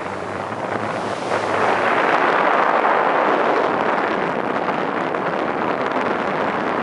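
Wind buffeting the microphone over the rushing noise of open sea, getting louder about two seconds in.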